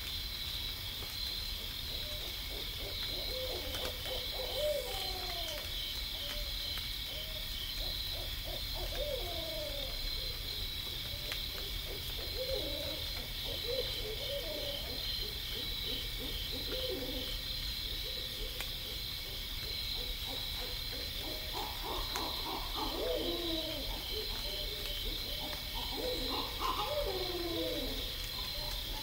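Owls calling: a run of wavering hoots that swoop up and down in pitch, some overlapping as if more than one bird, busier in the second half. Behind them runs a steady, high, pulsing drone.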